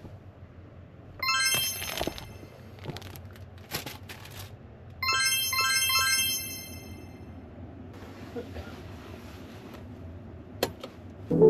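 Two short bursts of a bright, chiming electronic jingle of quick high notes, like a ringtone, about a second in and again around five seconds in, with a few soft clicks and handling sounds between them.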